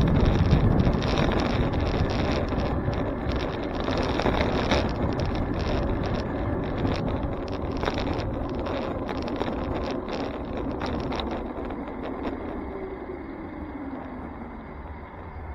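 Wind noise on the microphone of a camera riding on a moving bicycle, mixed with road and tyre noise and frequent small rattles over bumps. It gets quieter toward the end as the bike slows.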